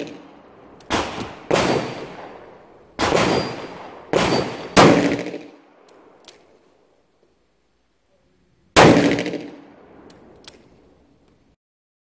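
Smith & Wesson Governor revolver firing .410 defensive shotshells, a mix of three loads in the cylinder. Six shots at uneven spacing, five within the first five seconds and a last one near nine seconds, each trailing off in echo.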